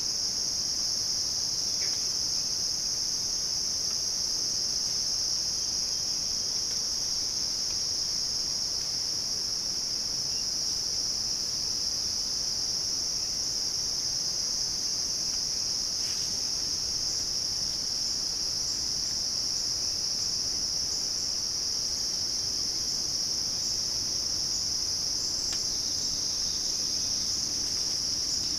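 A continuous chorus of crickets: a steady, high-pitched trill with no breaks.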